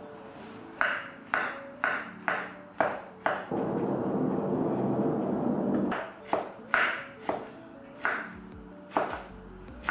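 Chef's knife chopping vegetables on a wooden cutting board: separate sharp knocks about two a second, with a denser stretch of fast mincing in the middle.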